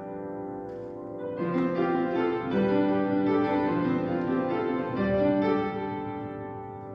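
Piano music: a slow melody of held notes that fades out near the end.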